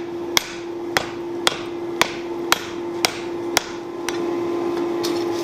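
Hand hammer striking a red-hot grader-blade face plate on a cast iron anvil to set a forge weld, about two blows a second. There are seven sharp blows, then lighter ones near the end, over a steady hum.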